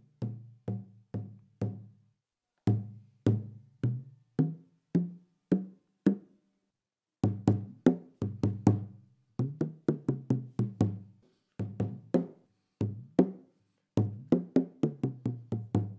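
Rope-tuned skin hand drum struck with a stick in short rhythmic phrases with brief pauses between them. The player presses his elbow into the drum skin to tighten it, so the pitch of the strokes rises and falls.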